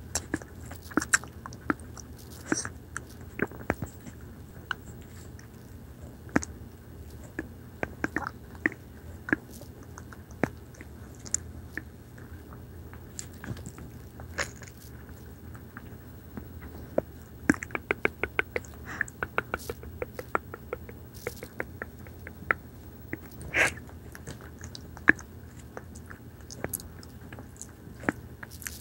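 Close-up wet mouth sounds for ear-eating ASMR: tongue and lips licking, smacking and clicking right at the microphone in scattered sharp pops, with a quick run of rapid clicks about two-thirds of the way through. A steady low hum lies under it.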